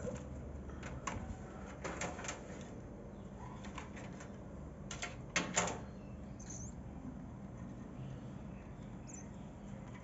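Cockatiel wings flapping in short bursts, loudest about five and a half seconds in, with two brief high chirps in the second half.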